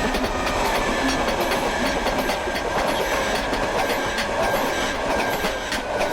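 A train passing close by: a loud, steady rumble and rattle of the cars, with the wheels clicking over the rail joints.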